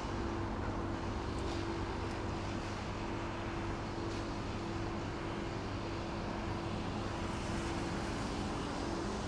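Steady mechanical hum of the shop's machinery, holding one constant tone, with a few faint light clicks from plastic tongs picking up food from the trays.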